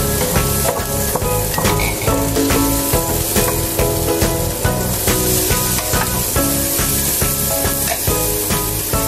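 Diced onion frying and sizzling in a stone-coated pan, stirred with a wooden spatula as more diced pieces are tipped in. Background music with a steady beat plays throughout.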